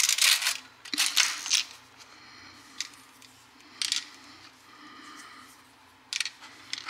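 Plastic stick magazine of a Crosman AK-47 BB gun being handled and worked. It gives five short bursts of clicking and rattling, the loudest two right at the start and about a second in.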